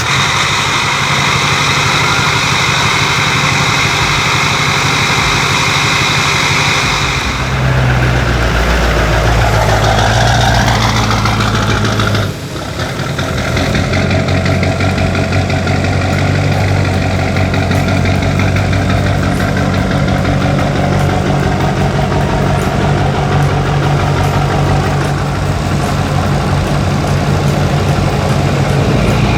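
Truck engine running at idle. Between about seven and twelve seconds in, its note shifts and glides before a brief dip, then it settles back to steady running.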